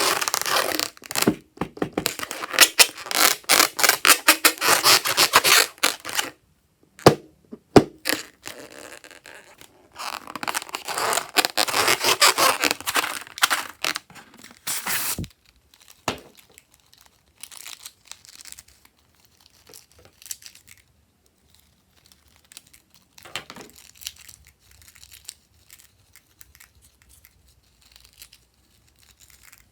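Crackling, crinkling handling noise from slime being worked by hand. It is dense and busy in two long stretches, with a couple of sharp clicks between them, then thins to scattered faint pops and crackles for the second half.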